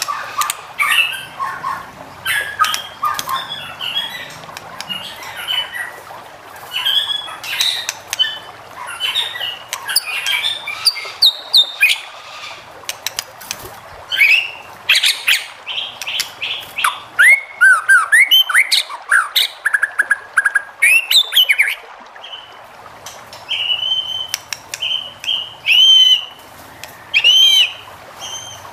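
White-rumped shama singing a long, varied song: quick harsh chattering notes and clicks, then swooping whistled phrases past the halfway mark, and a run of repeated clear whistles near the end.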